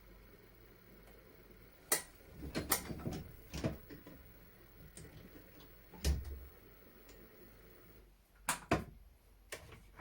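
Irregular sharp clicks and knocks of metal tools and parts being handled while taking apart a rusty flintlock shotgun. There is a single knock about two seconds in, a quick cluster just after it, another knock around the middle, and a pair near the end.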